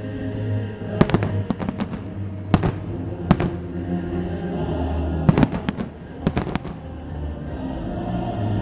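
Fireworks salute: about a dozen sharp bangs of bursting shells at irregular intervals, several in quick pairs, over music playing steadily underneath.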